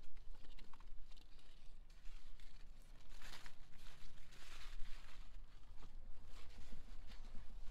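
Large zucchini leaves and stems rustling and crinkling as hands push through the plants, in a few short bursts, the loudest about three and four and a half seconds in.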